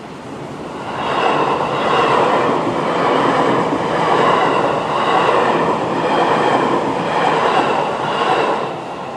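E653 series electric train passing through a level crossing: a loud rush of wheel-on-rail noise that swells about a second in, pulses about once a second as the cars go by, and drops away near the end.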